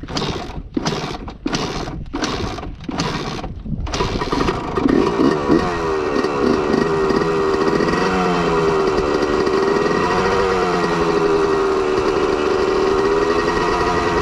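Kawasaki KFX 450R quad's single-cylinder four-stroke engine being started after a crash: it sputters in about six short bursts, then catches about four seconds in and keeps running, its pitch rising and falling before it settles.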